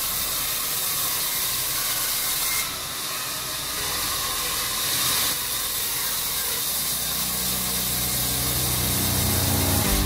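Sawmill vertical band saw cutting lengthwise through a squared timber as it is pushed along the table: a steady high hiss of the blade running through the wood.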